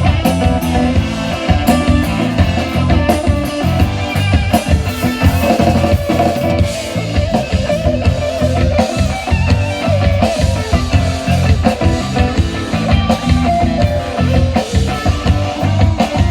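Live rock band playing an instrumental break: an electric guitar solo over a steady drum beat and bass.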